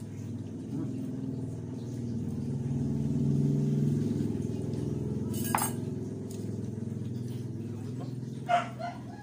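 A low engine rumble, like a vehicle running close by, that swells and then eases off. Two short sharp cracks, about halfway and near the end, come from prawn shells being peeled.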